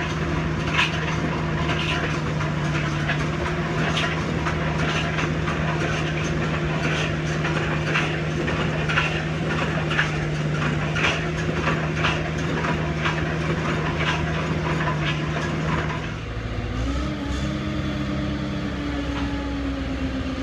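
Watson 1100 foundation drill rig running steadily under load while its auger drills into hard limestone, with a sharp knock about once a second. About sixteen seconds in the engine note changes and a new wavering tone comes in as the auger is raised out of the hole.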